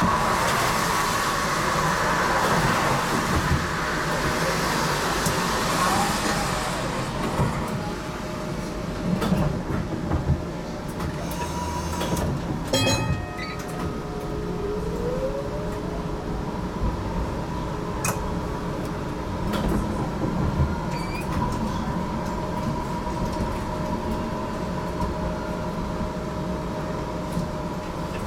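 GTL8 tram running on its rails, heard from inside the car: a steady running noise and a constant whine from the traction equipment. About halfway through there is a short clatter, followed by a rising motor whine as the tram picks up speed.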